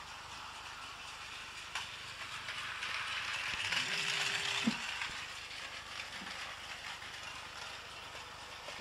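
Battery-powered Takara Tomy Plarail toy trains running on plastic track: the whirr of the small geared motor and the rattle of wheels on the track, growing louder as one train passes close by about four seconds in and then fading. A single click comes a little before that, and a knock just after the loudest moment.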